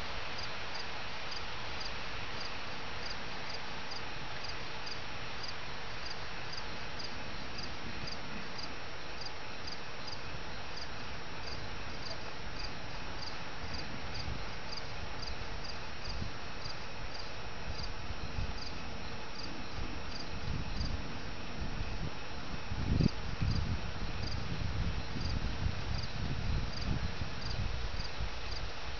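Crickets chirping, one regular chirp about one and a half times a second over a dense, steady chorus. In the second half, irregular low rumbles and thumps come in, the loudest about two-thirds of the way through.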